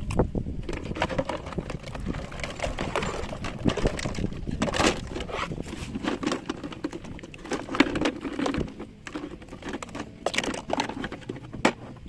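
Plastic toy vehicles being handled, giving a busy, irregular run of small knocks, clicks and rustles, with louder clusters about midway and again a few seconds later.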